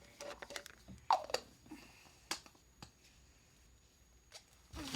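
Plastic baby bottles being handled: a few scattered light clicks and taps, with a brief falling squeak about a second in.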